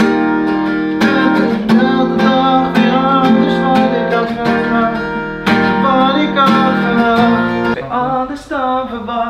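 Acoustic guitar strummed in repeated chords, changing chord twice, with a voice carrying a melody over it.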